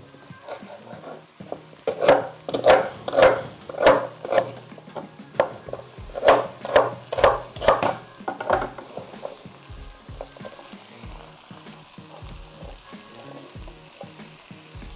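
Kitchen knife chopping vegetables on a wooden cutting board: a run of sharp knocks about two a second starting about two seconds in, a second run around six to nine seconds in, then lighter, scattered taps.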